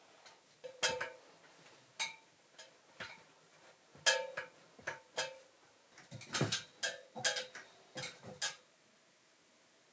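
A string of sharp, irregularly spaced metallic clicks and knocks, about a dozen, each with a short ring, bunched closest together a little past the middle.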